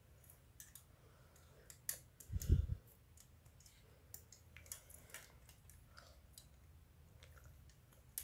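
Hobby nippers snipping small plastic model-kit parts off their runner: a scattered series of small sharp clicks and snips, with one dull thump about two and a half seconds in.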